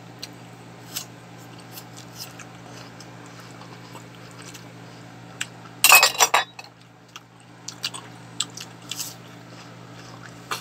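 Eating at a table: chewing and small scattered clicks and clinks of a spoon against a plate, over a steady low hum. A brief loud noise comes about six seconds in.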